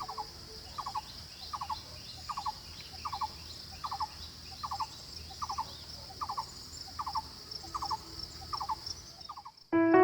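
A bird calling over and over, each call a quick cluster of three or four short notes, about one call every 0.8 seconds, over a steady high insect drone.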